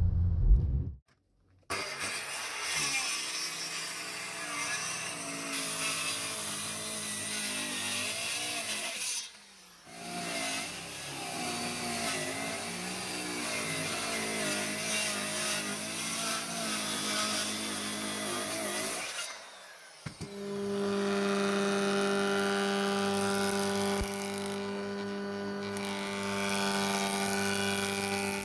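A handheld electric circular saw cuts along a thick wooden plank in two passes, with a short break about nine seconds in; its motor pitch wavers under load. After a brief pause about twenty seconds in, an old jointer-planer's motor runs with a steady hum. At the very start, about a second of car road rumble cuts off.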